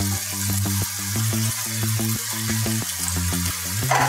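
Mutton frying in a pan with a steady sizzle, under background music with a steady beat and a bass line that steps between notes.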